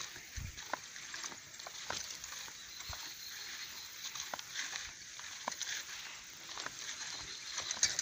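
Walking through long grass outdoors: irregular light clicks and rustling over a steady high hiss.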